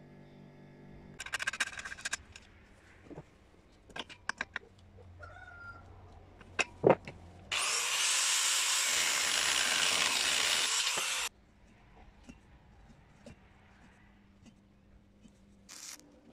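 Angle grinder running on steel for about four seconds, the loudest sound, with scattered clanks and knocks of metal being handled before it. Near the end, two short crackling bursts of a stick welder striking an arc.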